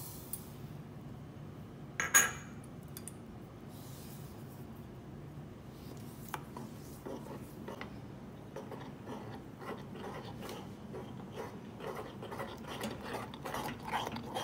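Metal spoon scraping and clinking against a saucepan while stirring thick oat porridge. There is one sharp clank about two seconds in, and from about seven seconds in the stirring strokes come quicker and louder.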